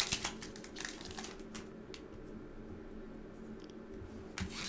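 Faint rustling and small clicks of a foil trading-card booster pack and its cards being handled, quieter for a couple of seconds in the middle.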